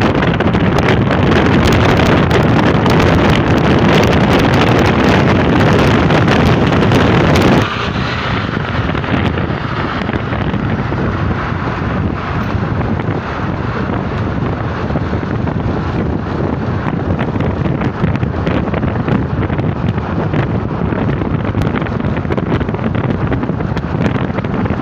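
Wind and road noise of a car travelling at motorway speed: a steady rush with wind on the microphone. About eight seconds in it drops abruptly to a lower, duller level.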